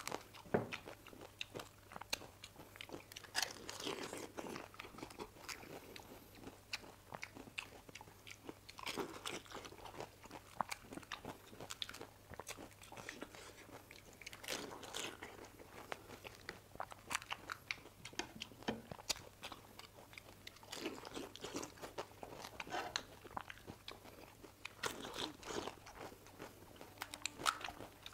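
Close-miked crunching and chewing of crisp, hollow pani puri shells: many sharp cracks and crunches, bunched into bouts every few seconds as puris are cracked open and eaten.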